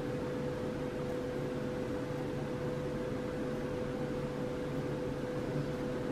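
Steady background hum with a constant mid-pitched tone running underneath, unchanging throughout; no distinct stitching or handling sounds stand out.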